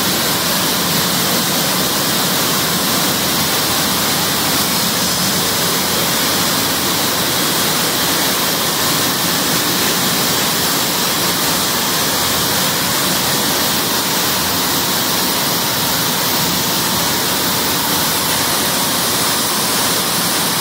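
Textile mill machinery running: a loud, steady, even noise with no breaks.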